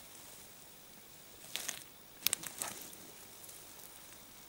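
Faint crunching and scraping of snow, ice and trap wire as a beaver trap is set in a hole cut through river ice, in two short bursts of crackling about one and a half and two and a half seconds in.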